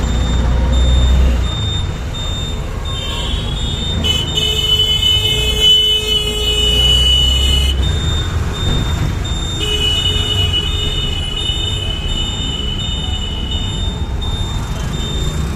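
Vehicle running with a steady low rumble, overlaid by two long high-pitched squeals of about four seconds each, the first starting about four seconds in and the second near ten seconds.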